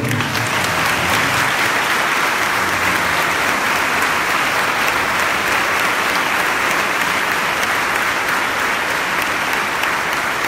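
A congregation applauding: many hands clapping at once in a dense, steady applause.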